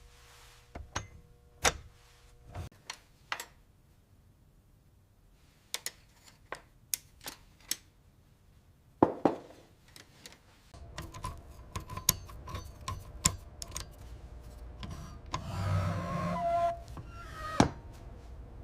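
Scattered sharp clicks and knocks of typewriter parts being worked on, with a pause about four seconds in. From about eleven seconds in a low steady hum runs under further clicks, and a rougher, noisier stretch follows near the end.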